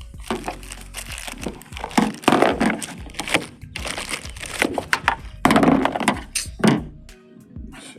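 Plastic packaging crackling and crinkling in irregular bursts as it is pulled off a new A/C expansion valve, with several sharp loud cracks.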